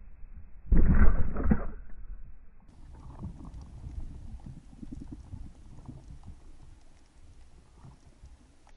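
Speargun shot heard underwater: a heavy thud with a short clatter about a second in as the spear strikes a mullet, followed by faint underwater crackling and low water rumble.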